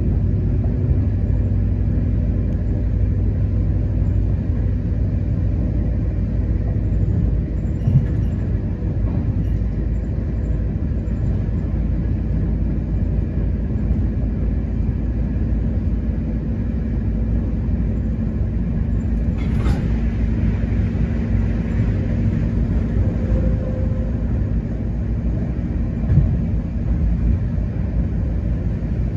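Passenger train running at speed, heard from inside the carriage: a steady low rumble of the wheels on the rails and the carriage. A short, sharp rushing noise cuts in about two-thirds of the way through.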